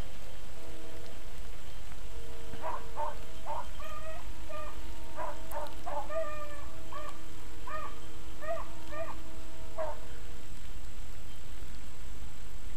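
Pack of beagles baying as they run a rabbit track, a string of about a dozen short calls over several seconds.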